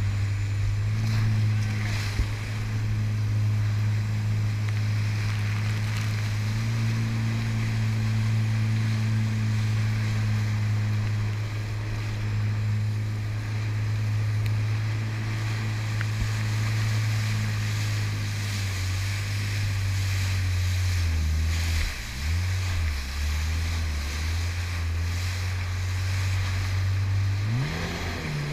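Personal watercraft (jet ski) engine running at steady cruising revs over the rush of wind and water. About two-thirds of the way through the revs drop and waver up and down, then climb sharply near the end as the throttle opens.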